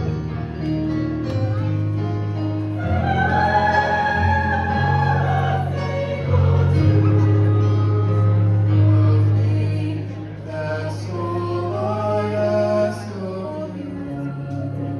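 Youth choir and a vocal duet singing a song over long held low notes. A high voice sings long, wavering notes about three seconds in and again near the end.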